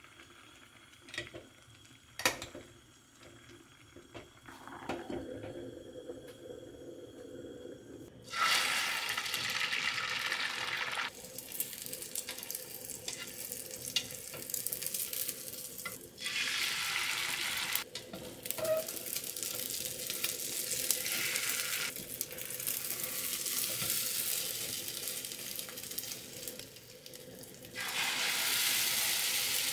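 A few light clicks of a spoon in a pot of stew, then from about eight seconds in, beaten egg sizzling in a hot rectangular omelette pan as a Korean rolled omelette cooks, the sizzle coming in spells a few seconds long. Near the end a fresh burst of sizzling starts as more beaten egg is poured into the pan.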